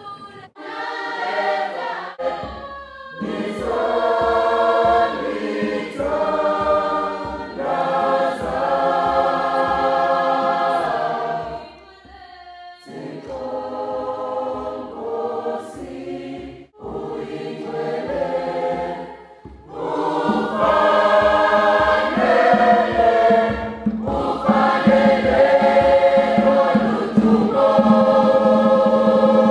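Large school choir singing in many-part harmony, with short breaks between phrases. A steady low beat runs underneath from about two seconds in.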